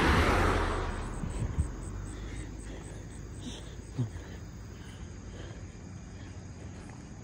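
A car passes close by, its tyre and engine noise fading away over the first second or so. Then crickets chirp steadily in the background, with a single small knock about four seconds in.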